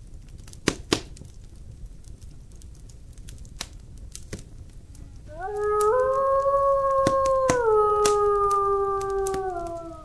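A wolf howling: one long howl, starting about halfway in, that rises at its onset, holds level, then drops a step in pitch and trails off. A couple of sharp clicks come in the first second.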